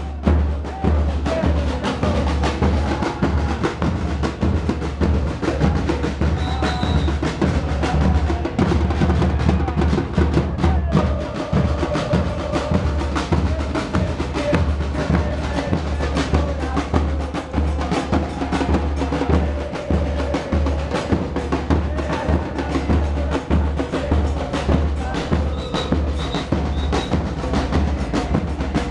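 A supporters' drum band of big bass drums and snare drums beats a fast, steady rhythm, with a crowd of fans singing a chant along with it.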